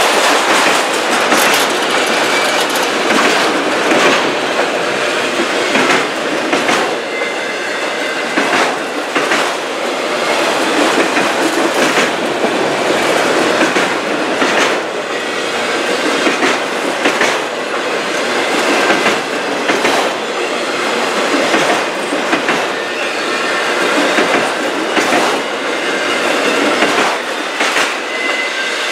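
Freight train of enclosed autorack cars rolling past, a steady rumble of steel wheels on rail broken by repeated clicks as the wheel sets cross rail joints. A faint high wheel squeal comes and goes.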